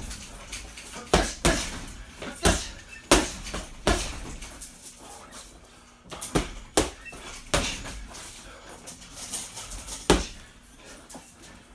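Punches landing on a hanging heavy bag: about ten sharp thuds, irregularly spaced and often in quick pairs, as combinations are thrown.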